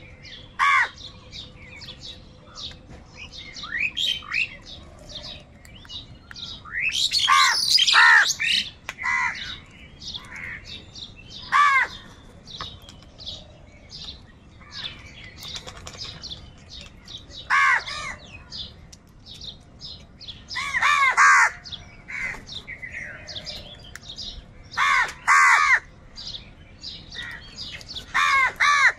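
Crows cawing: loud harsh caws every few seconds, bunched into overlapping calls from several birds at a few points, over a steady background of many small birds chirping.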